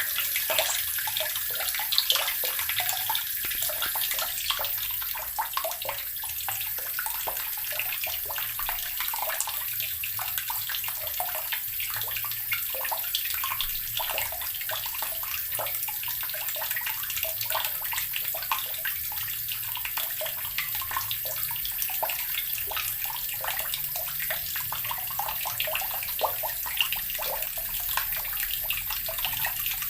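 Water running steadily from a tap, splashing into a basin or tub.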